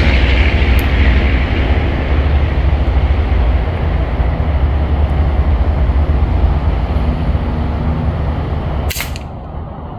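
Steady low outdoor rumble, with one sharp crack about nine seconds in: a single shot from a Brocock Atomic XR pellet rifle.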